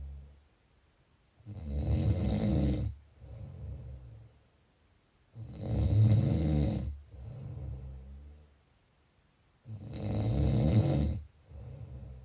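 A sleeping person snoring in a slow, even rhythm. Three loud, rough snores come about four seconds apart, each followed by a quieter, lower breath and a short quiet gap.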